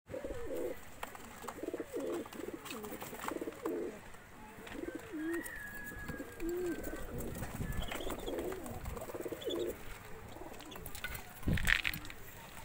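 Domestic pigeons in a wire loft cooing over and over. There is a short louder burst of noise near the end.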